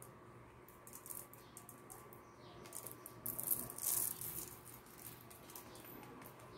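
Loose plastic sequins rattling and skittering on a tabletop as hands sweep and sprinkle them, in a run of fine quick clicks that is thickest and loudest about three to four seconds in.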